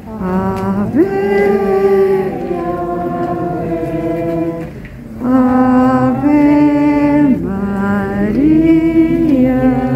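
A crowd of pilgrims singing a slow hymn together, with long held notes and gliding steps between them, pausing briefly about five seconds in.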